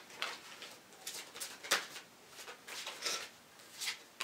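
Tarot deck being shuffled by hand: soft, irregular swishes of cards sliding against each other, a few per second.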